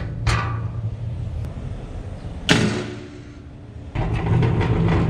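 A door on the machine slammed shut once, about halfway through, a sharp hit with a fading tail, over a steady low hum.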